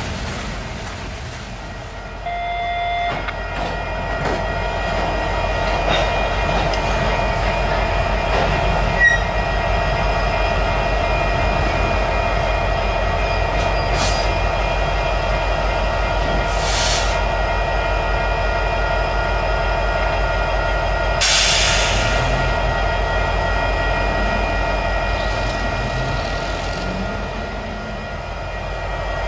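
Freight cars rolling past: a steady low rumble with a regular clatter of wheels, and wheel squeal heard as steady high tones throughout. A brief tone comes about two seconds in, and there are a few short bursts of hiss midway.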